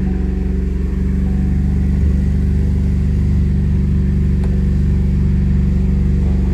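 A 2013 Cadillac ATS's 2.0-litre turbocharged four-cylinder engine idling steadily just after being started. It is the engine whose scan tool logs a cylinder 4 misfire.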